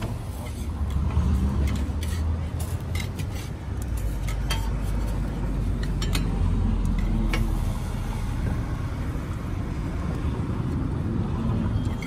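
Metal utensils clicking and scraping on a flat steel griddle: a potato masher pressing and a spatula folding an egg-wrapped burger patty, in a few sharp clicks. Under it runs a steady low rumble.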